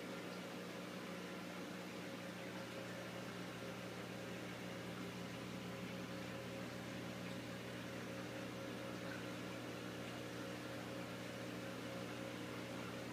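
Steady electric hum of aquarium pump equipment with an even hiss of moving water and air, unchanging throughout.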